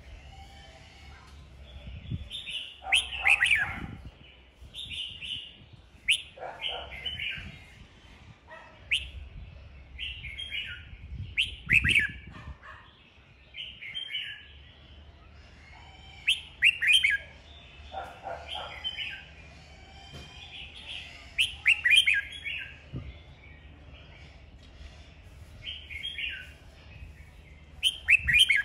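Red-whiskered bulbul singing its fighting song: short, loud chirping phrases repeated every second or two, each a quick run of clear notes.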